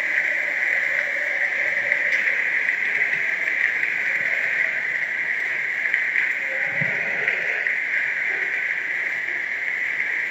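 Hail and rain falling steadily onto a grass lawn, a continuous hiss with a few faint low thumps about two-thirds of the way through.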